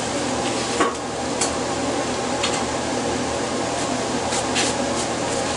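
Steady hum of a woodshop machine motor, with a few light clicks and scrapes over it.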